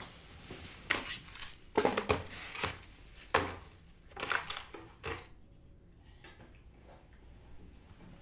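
A child's toys and belongings clattering and knocking as they are picked up and dropped into a plastic laundry basket, a run of irregular rattles in the first five seconds that then dies down.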